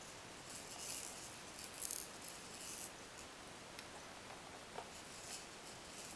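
Beads rattling inside the clear plastic spinner domes of a baby's activity saucer as a small hand bats at them, in several short bursts in the first three seconds and a couple of fainter ones later.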